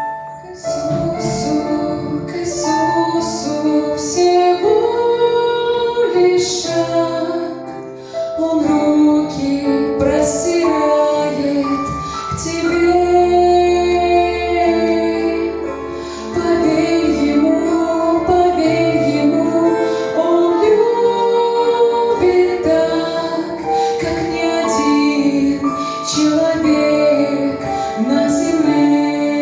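A woman singing a Christian song over instrumental accompaniment, in long held, gliding notes.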